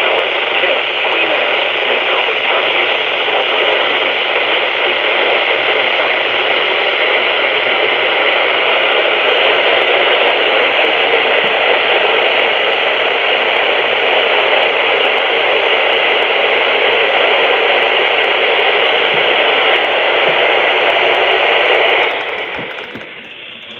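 Steady radio static hiss on a NOAA Weather Radio channel received through a software-defined radio, falling away near the end.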